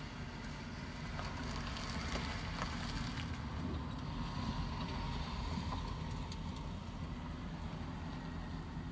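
Low, steady engine rumble from motor vehicles, with cars passing by.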